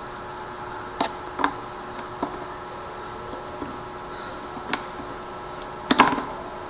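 Hard plastic clicks and knocks as a J-hook action-camera mount is pushed and snapped onto a helmet chin-mount strap's mount: a handful of separate clicks, the loudest a quick cluster near the end.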